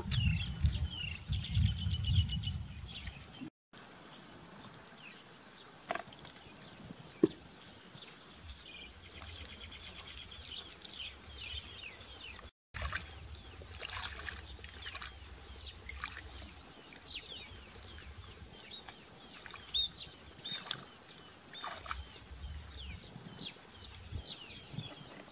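Water splashing and gurgling as a bucket is emptied into a muddy puddle for the first few seconds. Then a quieter outdoor background with many short, high bird chirps.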